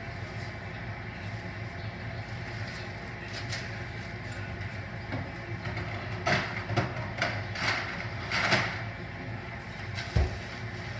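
A steady low mechanical hum, with a few short clattering knocks in the middle and a single low thump near the end.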